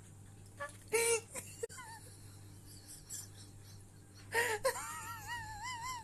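An animal's high-pitched calls: a few short cries about a second in, a louder one at about four and a half seconds, then a long call whose pitch wavers up and down.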